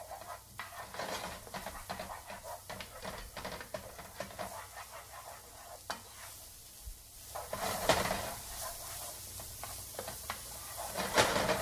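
Minced garlic sizzling in hot oil in a nonstick frying pan while a utensil stirs it and scrapes against the pan in many short strokes. The scraping gets louder briefly about eight seconds in and again near the end.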